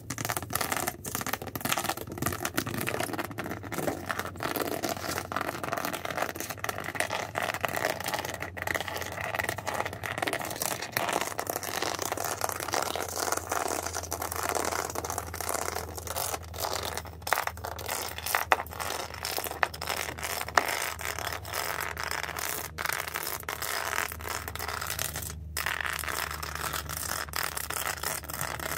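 The backs of fingernails scraping and scratching over an object close to the microphone: a continuous, dense scratching texture with many small ticks, fairly even in level throughout.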